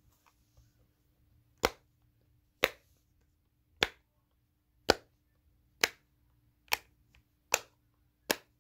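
Bubbles of a silicone pop-it fidget toy being pushed through one at a time: eight sharp pops, about one a second.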